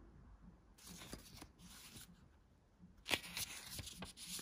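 Paper pages of a thin instruction booklet being turned by hand, rustling in two stretches with a sharp crinkle about three seconds in.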